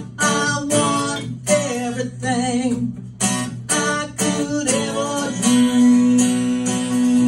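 Acoustic guitar strummed in a steady rhythm, about two strums a second, under a wordless sung line; about five seconds in a long note is held over the strumming.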